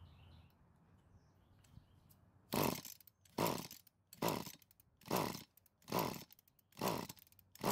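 Recoil pull-starter of an Echo stick edger's small two-stroke engine being yanked about six times in a steady rhythm, a little under one pull a second, after a short quiet start. The engine is being cranked over for a compression test with a gauge screwed into the spark-plug hole.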